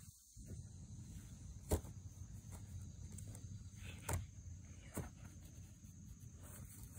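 A skateboard knocking a few times as it is handled and jumped on. There are three sharp knocks: the loudest about two seconds in, then two more a couple of seconds later, close together. Underneath is a faint, steady outdoor background.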